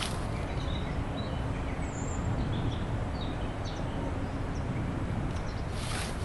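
Outdoor ambience: a steady low rumble with faint, brief bird chirps now and then. There is a short rush of noise near the end.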